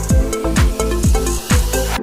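Electronic dance music with a pounding kick drum about twice a second, synth notes and hi-hats, cutting off at the end.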